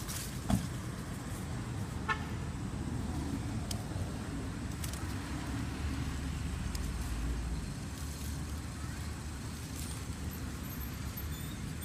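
Steady low outdoor background rumble, swelling for a couple of seconds about six seconds in, with a faint click about half a second in and another about two seconds in.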